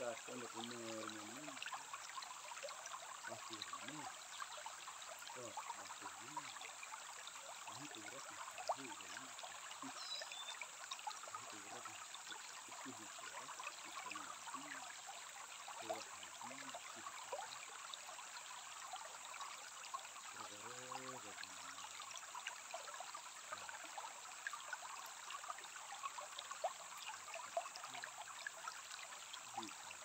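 A shallow stream flowing steadily over pebbles, with a constant babbling trickle and small splashing clicks. Faint low voices come and go in the background every few seconds.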